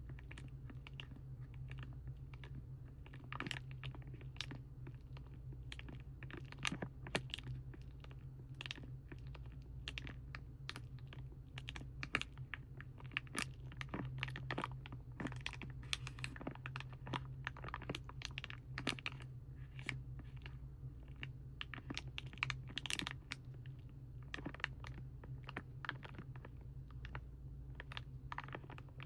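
Irregular, quick taps and crinkles on the plastic and foil packaging of craft paints, with a steady low hum underneath.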